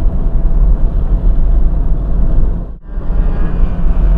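Mazda Miata driven at speed on a racetrack, heard from the open cockpit: the engine runs under heavy wind and road rumble. The level drops sharply for a moment about three seconds in, and after that a steady engine tone stands out more clearly.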